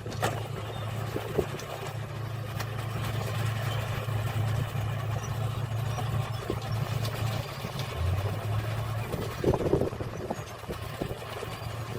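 Diesel engine of earthmoving machinery running steadily, its pitch dipping briefly about eight seconds in, with a few short knocks over it.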